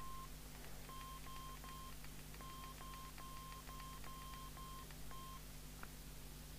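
PNI HP55 CB radio's handset keypad beeping as its keys are pressed: about eleven short beeps of one pitch, each with a faint click, in quick runs, while the channel setting is changed.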